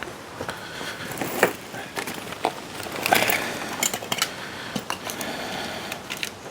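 Scattered light clicks, taps and rustles of small objects being handled, irregular and spaced about a second apart.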